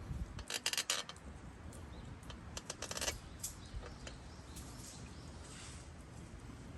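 Clinking and rattling of small hard objects being handled, in two short bursts about half a second in and around three seconds in, with a few lighter ticks after.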